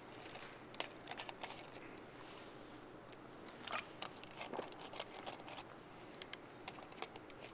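Faint scattered clicks and short crackles of handling noise near the microphone, over a thin steady high-pitched whine.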